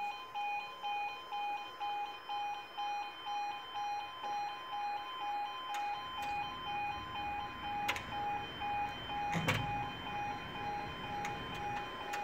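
Railway level crossing audible warning alarm sounding while the barriers are lowered, a two-tone electronic alarm pulsing about twice a second. A brief low thump comes about nine and a half seconds in.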